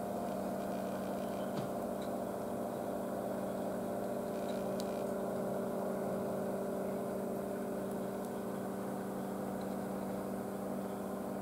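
Steady mechanical hum, a low drone with several overtones held without change.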